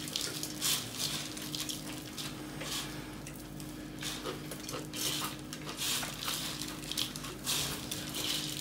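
Close-up eating sounds of a person eating rice and curry by hand: chewing and mouth noises, with fingers mixing rice on a steel plate, coming in short bits about once a second over a steady low hum.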